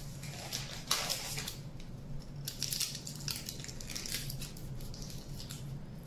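Aluminium foil crinkling and crackling in irregular bursts as hands squeeze and press it into shape.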